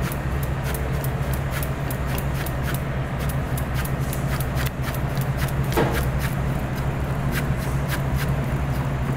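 A sharp Japanese VG10-steel chef's knife slicing chives on a cutting board in quick, even strokes, about four to five light taps a second, each stroke a clean slice rather than a crushing press. A steady low hum runs underneath.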